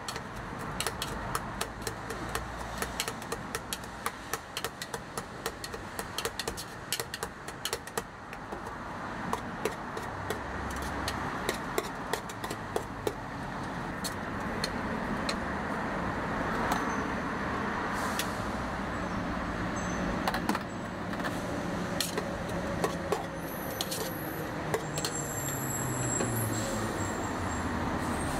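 A metal utensil clicking rapidly against the inside of a stainless steel pitcher as a mixture is stirred, the clicks dense at first and sparser later. Steady street traffic noise runs underneath, growing louder.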